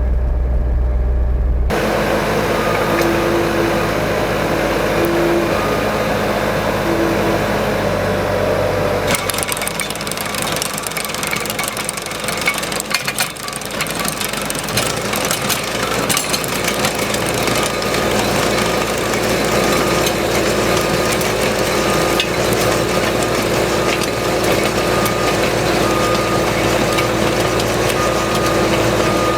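Skid steer loader's engine running hard with a Bradco trencher attachment's digging chain turning under hydraulic power and cutting a trench in the ground. A harsher, clattering layer joins about nine seconds in.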